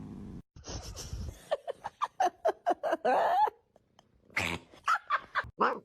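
A cat making a quick run of short, pitched vocal calls, then one longer call that bends in pitch; after a short pause comes a second run of about five short calls, cut off abruptly.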